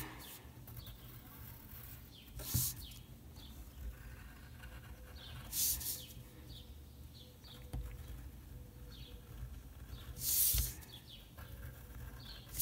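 Pencil scratching on paper in short drawing strokes, with three longer, louder strokes about two and a half, five and a half and ten and a half seconds in.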